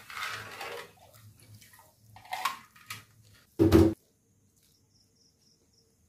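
Kitchen cookware being handled: a rustling clatter, a short scrape about two seconds in, then one loud knock near four seconds, after which it goes quiet.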